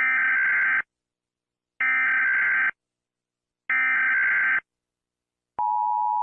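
Emergency Alert System SAME header: three identical buzzing digital data bursts, each a little under a second long with about a second between them. Near the end the steady two-tone EAS attention signal starts, announcing an emergency message.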